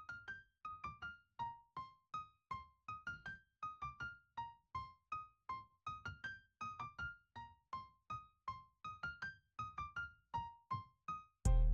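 Background music: a light keyboard melody of short, quickly fading notes, about three a second. Near the end, a louder passage with a heavy bass comes in.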